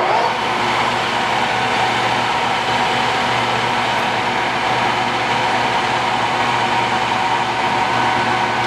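Standard Modern 16-60 engine lathe with its spindle running at 1000 RPM: a steady gear-head whine and hum made of several steady tones. It comes up to speed in the first moment, then holds level.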